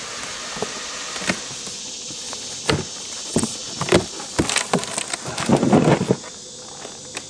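Cardboard box being opened by hand: slit packing tape pulled and flaps pried up and folded back, with a string of sharp cardboard clicks, scrapes and knocks in the second half, over a steady high hiss.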